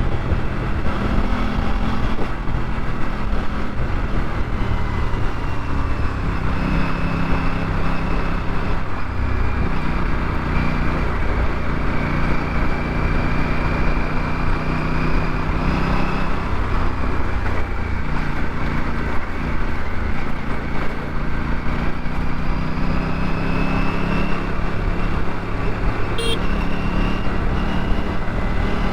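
Aprilia RS 457's parallel-twin engine running under way, its pitch drifting up and down with the throttle over a steady rush of wind and road noise.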